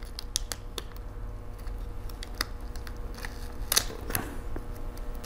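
Small clicks, taps and a brief soft rustle of hands peeling adhesive tape off a laptop's hard-drive caddy to free a cable, over a faint steady hum.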